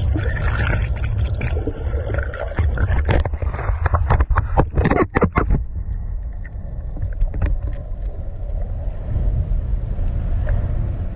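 Underwater sound: a steady low rumble of water noise, with a run of sharp clicks from about three to five and a half seconds in.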